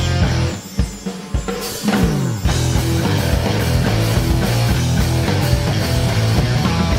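Background rock music with drums and guitar. It drops to a sparser break with a falling sweep, and the full band with a steady beat comes back in about two and a half seconds in.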